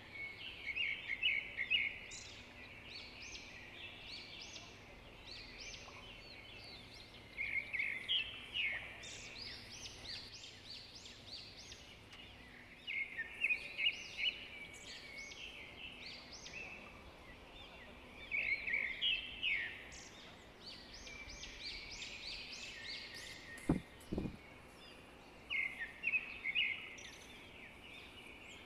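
A songbird singing short bursts of rapid high notes, a phrase every five or six seconds, over a faint steady background. A brief low thump sounds about two-thirds of the way through.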